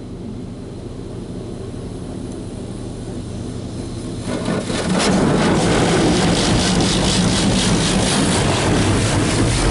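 Automatic touch-free car wash heard from inside the car: a low steady hum, then about four seconds in high-pressure rinse water starts spraying onto the car, a loud pulsing rush of water.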